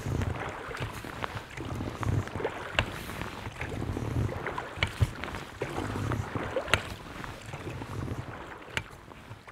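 A pair of oars rowing an inflatable PVC boat: a stroke and water swirl about every two seconds, with sharp knocks now and then.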